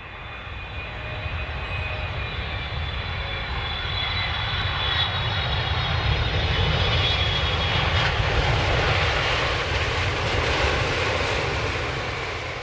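A steady engine roar with a deep rumble and a faint high whine, building up over the first few seconds and easing off near the end.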